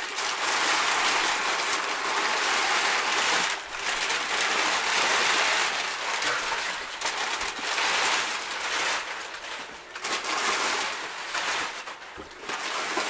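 Crumpled brown kraft packing paper crinkling and rustling loudly as it is pulled out of a cardboard shipping box by the handful, with a few brief pauses.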